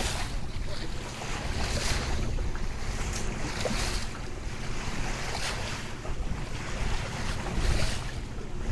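Sea water rushing and splashing at a moving boat's bow, with wind buffeting the microphone as a steady low rumble.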